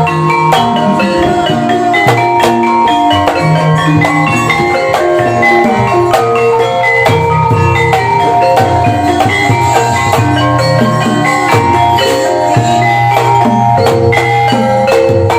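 Gamelan music for ebeg Banyumasan: struck tuned mallet instruments playing a dense, continuous pattern of notes over a steady drum.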